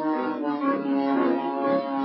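Instrumental background music: held pitched notes in chords that shift every half second or so, its speed and pitch changed by the playback-speed edit.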